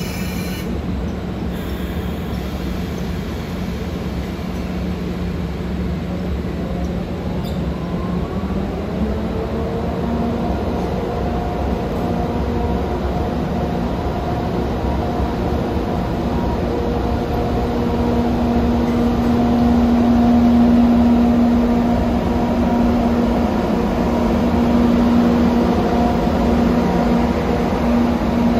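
JR EF64 1000-series electric locomotive hauling an E127 series EMU, running with a steady mechanical hum. About eight seconds in, the hum rises in pitch, then holds at the higher note.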